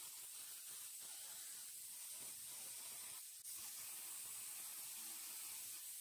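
Handheld 300 W pulsed fiber laser cleaner running over a grimy metal part, giving a steady high-pitched hiss as it scans, with a brief break about three and a half seconds in.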